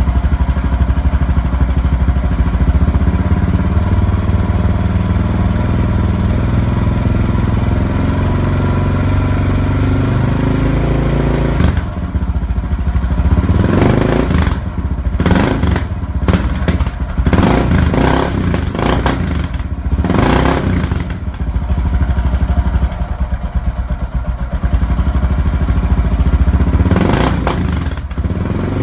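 Suzuki DR650's single-cylinder four-stroke engine through a Yoshimura aftermarket muffler on the stock header pipe, idling steadily for about twelve seconds, then revved in a string of quick throttle blips, each rising and falling back toward idle.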